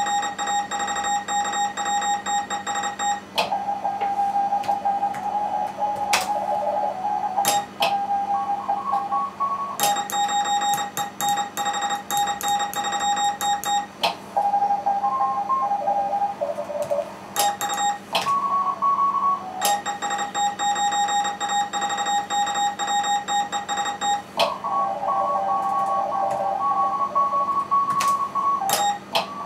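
Morse code contest traffic from an amateur radio station: the station's own CW sidetone sent on the key at one steady pitch, alternating with other stations heard answering in Morse at several different pitches over receiver hiss. Sharp clicks are scattered through it.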